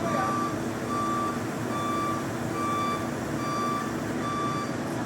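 Vehicle reversing alarm beeping at a steady pace, a little faster than one beep a second, about six beeps, over a steady engine rumble.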